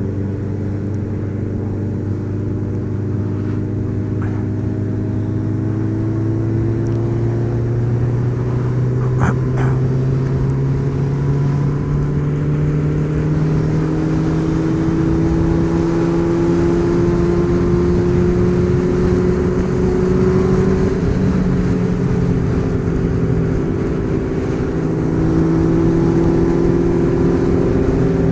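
Car engine running under steady load, its pitch climbing slowly as it gathers speed. It eases off briefly about two-thirds of the way through, then climbs again. A short click comes about nine seconds in.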